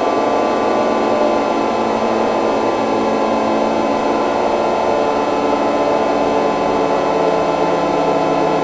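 A loud, steady drone of many held tones with no breaks.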